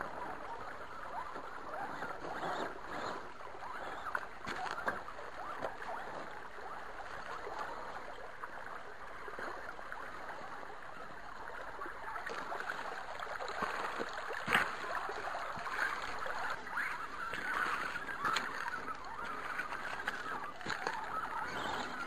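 Shallow creek water babbling steadily, with scattered small knocks and clicks throughout and one louder knock about two-thirds of the way through.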